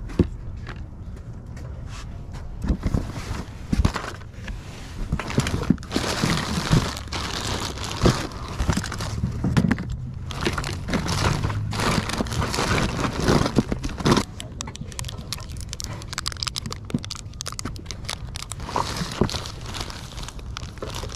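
Hands rummaging through a cardboard box of small plastic toys: plastic bags crinkling and small pieces clicking and clattering, busiest in the middle and thinning out near the end.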